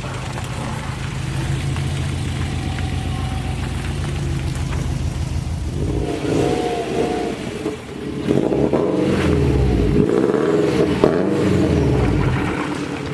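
2002 Subaru WRX's turbocharged flat-four engine running steadily, then revved up and down through the second half.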